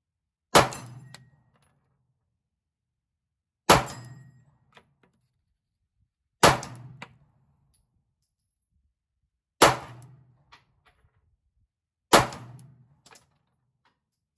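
Five single shots from a 9mm Glock 43x pistol, fired slowly about three seconds apart, each with a short echo. Each shot is followed about half a second to a second later by a much fainter sharp click.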